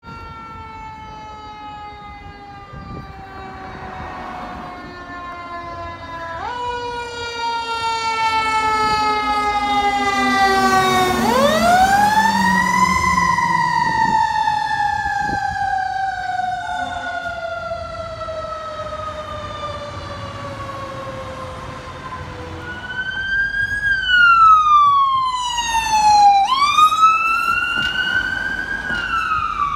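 Fire engine siren wailing: a slow fall in pitch, a quick rise just before halfway, then a long slow fall. In the last quarter the ambulance's siren takes over with faster rising and falling wails, the loudest part as the vehicles pass.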